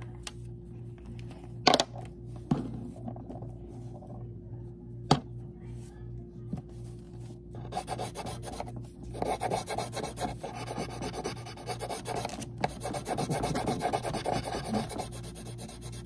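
Coloured pencil scratching back and forth on paper in quick, dense strokes, shading in colour; the scribbling starts about halfway through. Before it come a few sharp knocks.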